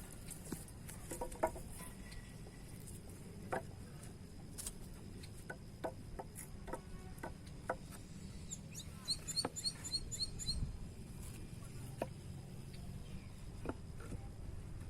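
Outdoor waterside ambience: a steady high insect whine throughout, and a bird giving a quick run of about eight short chirps around the middle. Scattered small clicks and a low rumble sit underneath.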